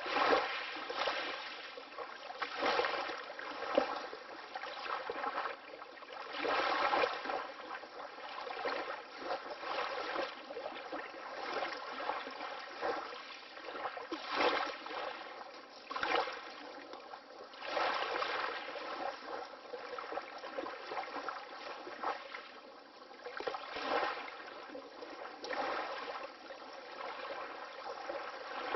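Water lapping in small waves: soft washes and gentle splashes that swell and fade about every one to two seconds, with no deep rumble beneath.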